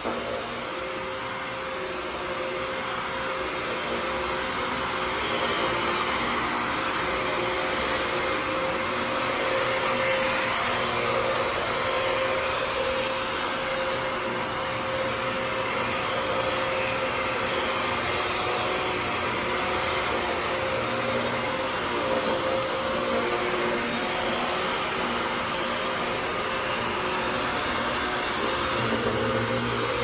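Upright PowerGlide Pet vacuum cleaner running on carpet: a steady motor hum with a constant tone, pushed back and forth over the pile. It grows a little louder over the first few seconds as it comes up to speed after being switched on.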